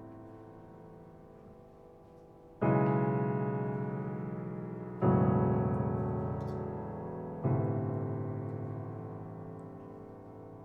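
Piano playing slow chords: a chord fades, then three new chords are struck about two and a half seconds apart, each left to ring and die away.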